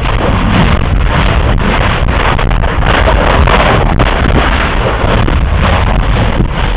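Lava explosions where Kilauea's Pu'u 'O'o lava flow meets the sea: a loud, continuous roar, laced with dense crackling and sharp bangs, with heavy rumble on the microphone.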